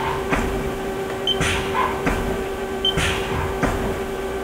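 Haas ST-30 CNC lathe's 12-station tool turret indexing station by station, a short beep and a clunk about every one and a half seconds, over the machine's steady hum.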